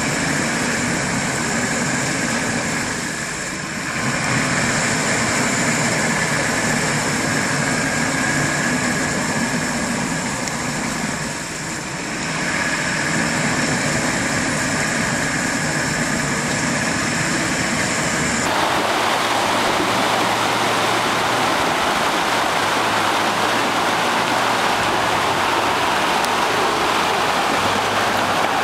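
A stuck 4x4's engine held at high revs with its wheels spinning in mud and water, easing off briefly twice. About two-thirds of the way through it changes to the steady rush of a fast river, with a vehicle engine running low underneath.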